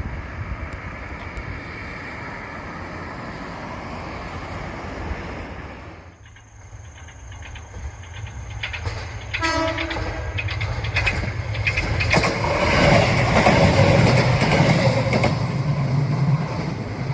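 A diesel railcar sounds one short horn blast, then comes closer with its engine and wheels running on the rails, growing loudest a few seconds before the end.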